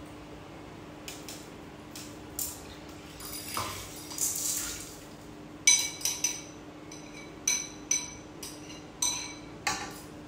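Kitchen utensils clinking against cookware: a string of sharp, ringing clinks in the second half, after a short hiss about four seconds in, over a faint steady hum.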